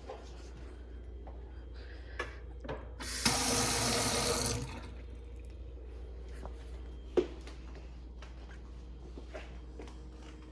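Kitchen sink faucet turned on, water running into the sink for about a second and a half, then shut off. A few sharp clicks and knocks around it, the loudest a few seconds after the water stops.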